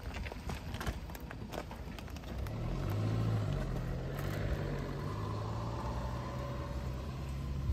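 A vehicle engine running, a steady low drone that comes in about two and a half seconds in, after a few light clicks.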